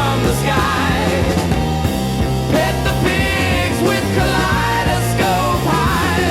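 AI-generated rock song playing steadily, with drums, bass and a wavering lead melody.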